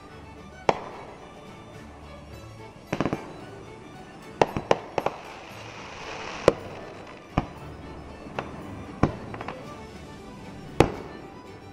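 Aerial fireworks going off: a series of sharp bangs at irregular intervals, several in quick clusters, with a hissing crackle about midway.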